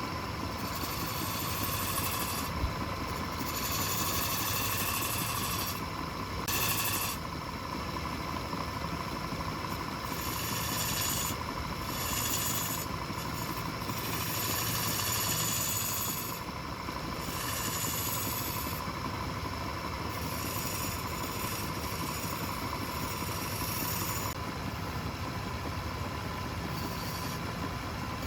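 Wood lathe running with a steady motor hum, while a turning chisel cuts the spinning wood in a hiss that swells and fades every few seconds.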